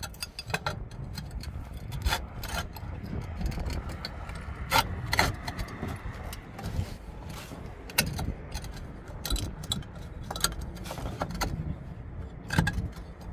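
A metal valley clip clicking and scraping against concrete roof tiles as it is worked into the tile joint and pushed up to hook both tiles, in many short irregular clicks over a steady low rumble.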